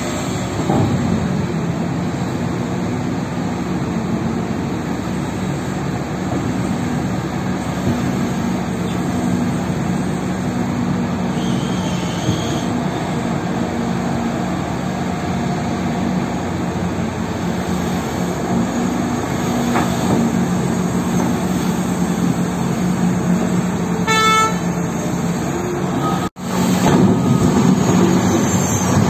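Heavy diesel engines of a Cat 6030 hydraulic mining shovel running steadily under load as it digs and loads a haul truck, a constant deep drone. About 24 s in there is a short horn blast, and a little later the sound briefly cuts out before coming back louder.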